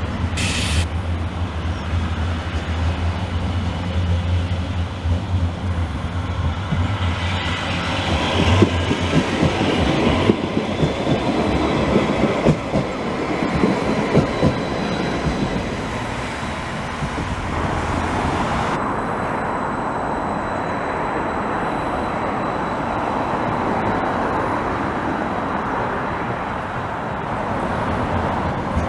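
CAF Urbos 3 light-rail tram running past on grass-covered track, its wheels rumbling on the rails, loudest about eight to fourteen seconds in. A low steady hum runs under the first several seconds.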